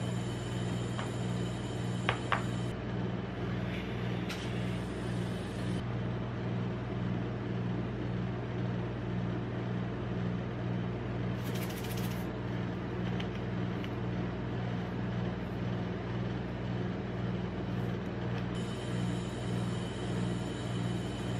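Steady low mechanical hum of an ice-roll machine's cold plate running, with two light clicks about two seconds in.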